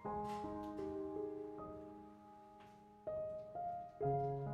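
Slow, gentle solo piano music: single notes and soft chords struck one after another, a pause of about a second and a half in the middle, then a fuller low chord near the end.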